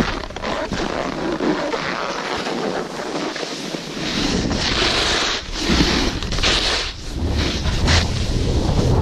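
Wind buffeting a moving action camera's microphone while snowboarding downhill, with the board's edge hissing and scraping over the snow in several swishes over the second half as it turns.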